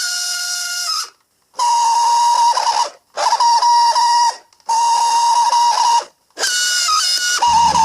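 Old New Bright remote-control toy car's electric motor and drive gears giving a loud whine in about five bursts of a second or so, starting and stopping as it is driven on carpet. The first burst is higher-pitched and the rest steady and lower. The owner thinks the noise means something is slipping in the drive under the chassis.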